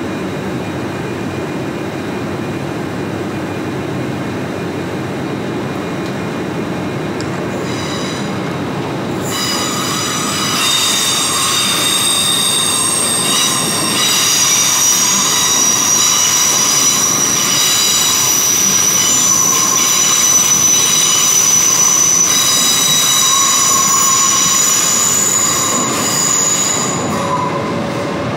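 Train wheels squealing on the rails: a low running rumble, then about a third of the way in several high, steady squealing tones come in and hold until near the end, where they fade.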